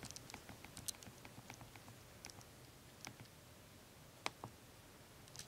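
Near silence with faint, scattered small clicks and ticks, a little sharper pair about four and a half seconds in.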